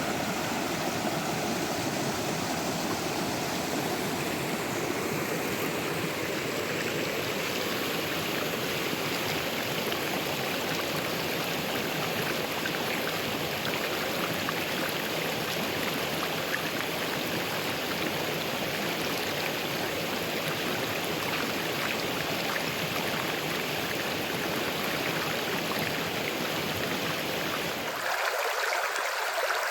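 River water flowing over rocks in a continuous, steady rush. Near the end the sound changes abruptly to a thinner, hissier rush without the low rumble.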